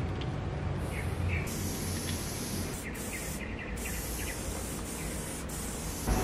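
Aerosol spray-paint can hissing in several bursts as black paint is sprayed onto a wall. The bursts begin about a second and a half in, with short breaks between them, over a steady low background rumble.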